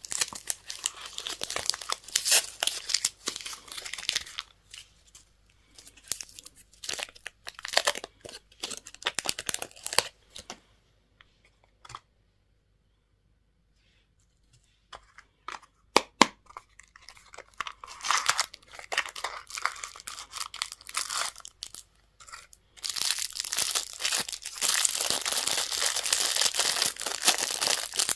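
Candy and toy packaging wrappers crinkling and tearing as they are opened, in irregular crackles. There is a silent gap of a couple of seconds about twelve seconds in, then dense, continuous crinkling from about twenty-three seconds on.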